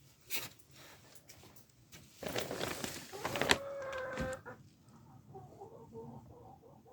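Domestic chickens clucking softly, with a short held call about four seconds in. A brief rustling, scraping noise comes before it, a couple of seconds in.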